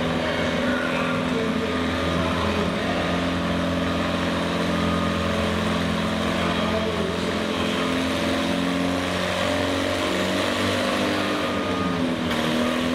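Antique Farmall tractor engine working hard under load, a steady even drone as the tractor drags the weight-transfer sled slowly down the dirt pulling track. The pitch sags slightly about two-thirds of the way through.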